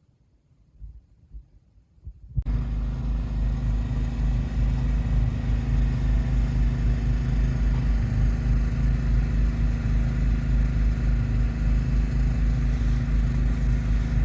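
Near quiet with a few faint low thumps, then about two and a half seconds in a vehicle's engine and road noise come in abruptly and run on as a steady low drone, as heard while driving.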